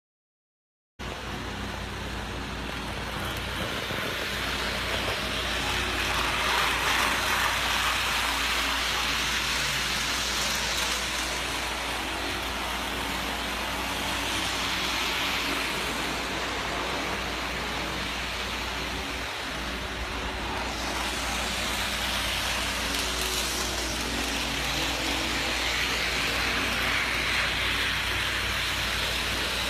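N scale model train running on its track, starting about a second in: a steady rushing whirr of the motor and wheels that swells every few seconds as cars pass close by, over a low steady hum.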